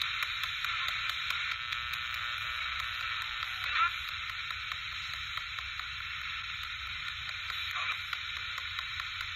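SB-7 spirit box sweeping through radio stations: a steady hiss of static, broken by brief snatches of radio voice about a second and a half in and a short chirp near four seconds in.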